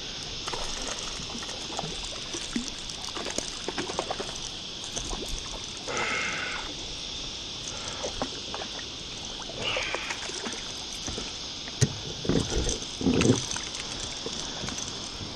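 Sea water lapping and trickling against a kayak's hull, with small splashes and knocks. A louder run of splashing comes about twelve to thirteen seconds in.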